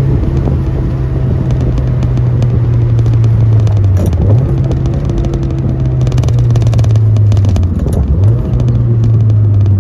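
Mazda MX-5 NC1's four-cylinder engine running through a catless header and aftermarket muffler at steady moderate revs. The engine note slowly drops in pitch and dips and picks back up twice, about four seconds in and again near the end.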